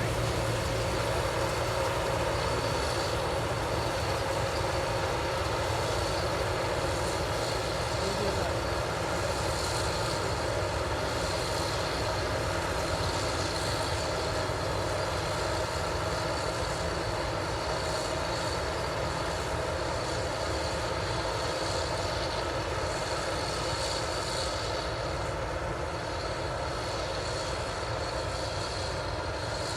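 Heavy machinery engine running steadily: a continuous drone that holds the same pitch throughout.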